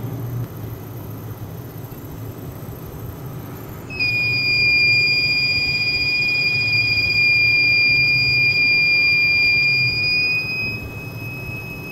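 Small belt-driven DC motor used as a generator, with a low hum throughout. About four seconds in, the piezo buzzer it powers starts a loud, steady high-pitched beep. Near the end the beep turns quieter and slightly higher.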